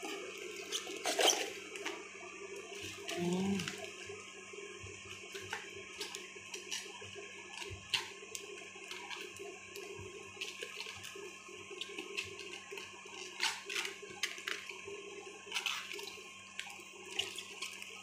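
Crisp rustling and crackling of cabbage leaves being pulled apart and peeled off a large cabbage head by hand, in many short irregular crackles over a steady background noise.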